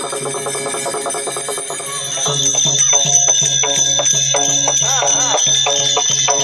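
Music: a voice singing over jingling, ringing metal percussion. About two seconds in the music shifts to a new, louder passage.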